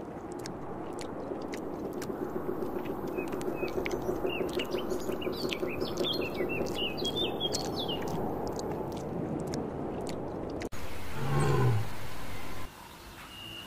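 Steady rustling noise, with small birds chirping a quick run of short notes in the middle. About eleven seconds in it cuts abruptly to a loud, low call that falls in pitch and lasts over a second, a sun bear's call.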